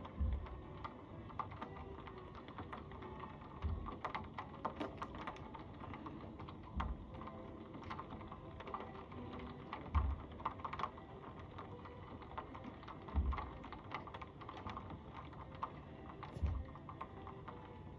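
Raindrops ticking irregularly against window glass, with a dull low thump about every three seconds.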